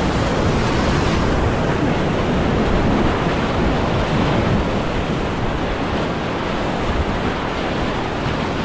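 Whitewater rapids rushing and churning around a kayak, a steady loud noise of turbulent water close to the microphone.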